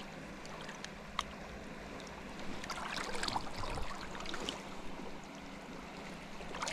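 River water splashing and sloshing at the bank, with a busier run of splashes from about two and a half seconds in to about four and a half seconds, over a steady low hum.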